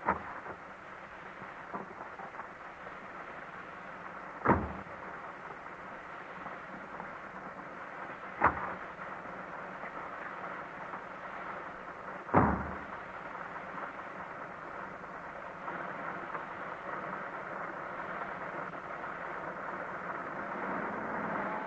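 Car doors being shut as a radio-play sound effect: a light knock at the start, then three heavy, muffled thumps about four seconds apart. A steady background noise runs beneath them and swells slightly in the second half.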